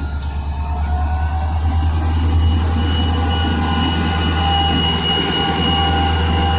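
Diesel freight locomotive running under load with its grain train, a steady pulsing engine rumble, while the steel wheels squeal on the rails in several steady high tones. It gets louder about a second in as the train comes closer.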